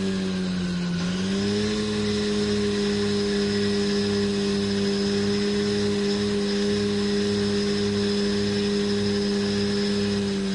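Tractor engine running steadily under way; its speed sags briefly about half a second in and picks back up a second later, then holds, with a low regular pulsing under the drone.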